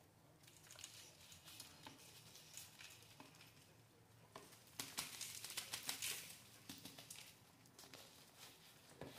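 Faint crinkling of a plastic plant pot and rustling of potting soil as a root-bound monstera is worked loose, its roots gripping the pot. Scattered light clicks, with a louder stretch of rustling about five seconds in.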